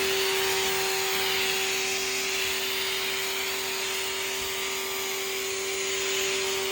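Electric pressure washer running steadily, its motor and pump giving a constant hum under the hiss of the spray as it sprays soapy detergent.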